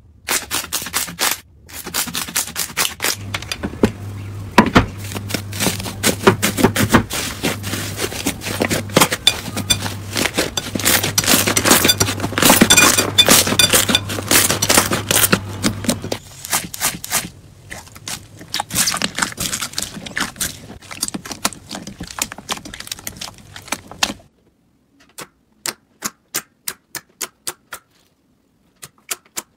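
Slime being squeezed, stretched and pressed by hand, making a dense run of sticky clicks and crackles that thins out into sparse single clicks near the end.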